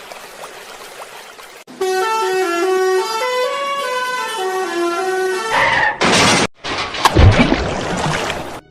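A musical vehicle horn playing a tune of short stepped notes for several seconds, followed by a sudden burst of noise and a rough noisy stretch with a few knocks.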